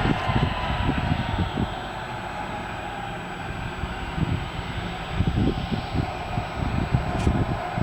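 Jet aircraft's engines running steadily before takeoff, a steady rush with a faint held whine, while wind buffets the microphone in gusts.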